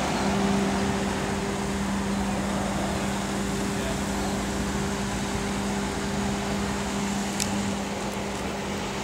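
Police cars rolling slowly past in a procession, with a steady low hum and a brief click near the end.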